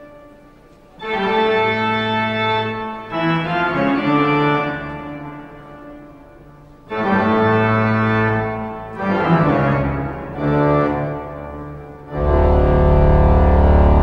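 Organ ringtone playing slow, eerie sustained chords that swell in and fade away one after another. Near the end a louder, deeper chord enters and holds, with a fast pulse in its low notes.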